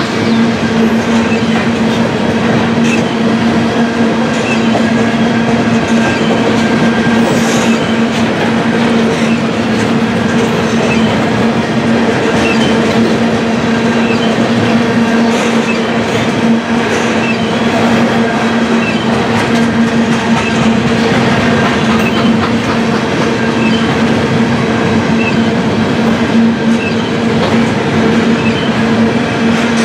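Freight train tank cars rolling past close by: a steady rumble of steel wheels on rail with a constant droning hum running through it.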